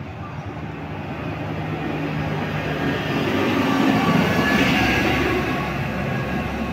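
Suzhou Higer KLQ6118H coach passing close by, its diesel engine and tyres growing louder as it comes up. It is loudest about four seconds in as it goes past, then eases off a little as it pulls away.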